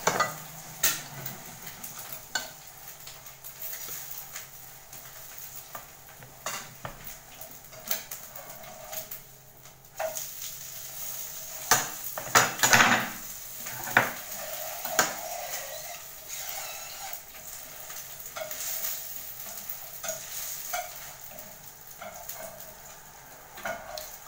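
Food sizzling in a frying pan, with repeated clinks, scrapes and knocks of a metal utensil against the pan; the knocks come thickest about twelve to fifteen seconds in.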